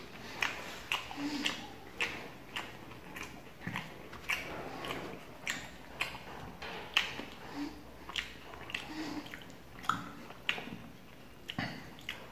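Close-up chewing and lip-smacking of a person eating soft roti and curry: irregular wet mouth clicks, about two a second.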